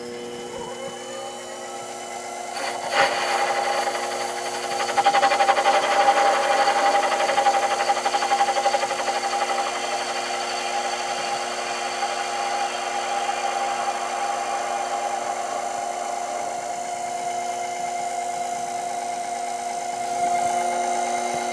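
Sherline mini lathe running with a steady motor whine while its tool takes a facing cut across the end of an aluminium bar, the tool set higher to clear the nub left at the centre. A knock comes about three seconds in, after which the cutting noise grows louder.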